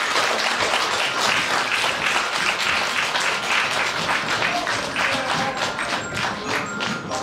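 Audience applauding, a dense patter of many hands clapping, with music coming in under it about five seconds in.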